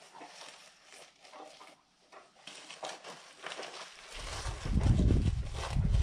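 Gloved hands pressing and rubbing mortar into the joints of a stone wall: soft scraping and patting. From about four seconds in, a loud, uneven low rumble comes in and covers it.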